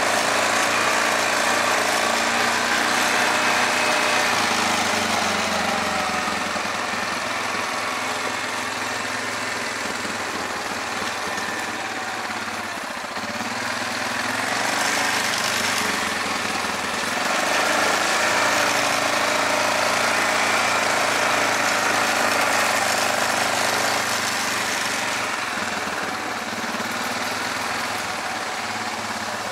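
Yamaha Grizzly 450 ATV's single-cylinder engine running steadily, its level easing and rising a little over the half-minute.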